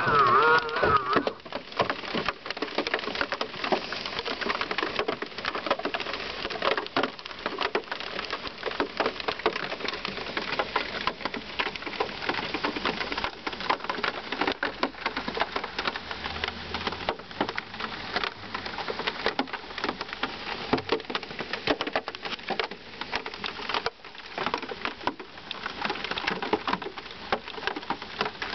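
Rain pattering on a velomobile's shell and windscreen, heard from inside the cabin as a dense, irregular crackle of drop strikes that stays even throughout.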